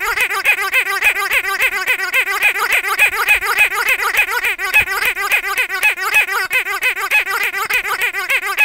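Squeaky dog toy squeezed by hand over and over, squeaking rapidly without a break, several squeaks a second, each rising and falling in pitch.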